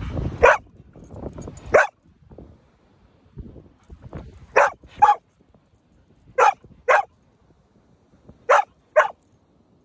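A dog barking: two single barks near the start, then three quick double barks about two seconds apart.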